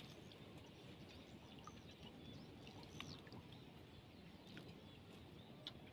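Near silence: faint lakeside ambience with a few faint, short bird chirps.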